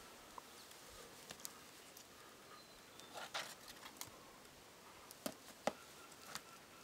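Quiet outdoor background with a soft scrape about three seconds in and a few sharp taps near the end: a boulderer's hands and rubber climbing shoes moving on granite.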